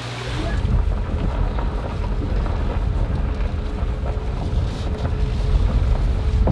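Car driving on an unpaved gravel forest road, heard from inside the cabin: a steady low rumble of tyres and engine.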